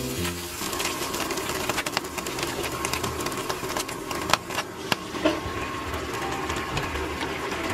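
Mushrooms and onions frying in oil in a nonstick pan, a steady crackling sizzle with a few sharp pops; about halfway through, oil from a can of Spanish sardines is poured over them.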